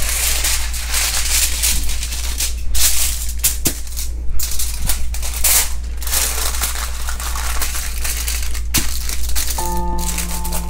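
Aluminium foil crinkling and rustling as a sheet is folded by hand, with background music coming in near the end.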